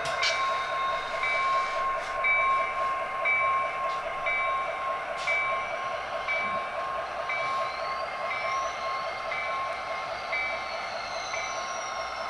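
Sound-equipped HO scale model diesel locomotive pulling out: steady engine chug with a bell ringing about every two-thirds of a second. A faint high whine glides up and then slowly falls.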